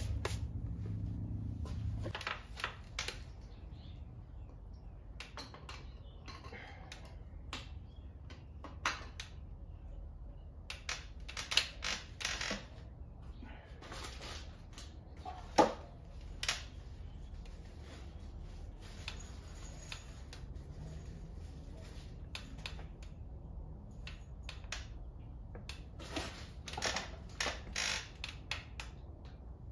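Scattered metallic clinks, clicks and knocks of hand tools and parts as an oil pump is fitted to a 6.1 Hemi engine block on a stand. A low hum stops about two seconds in.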